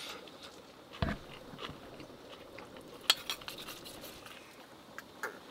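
Quiet eating sounds: soft chewing and a few light clicks of wooden chopsticks against a bowl, the sharpest about three seconds in.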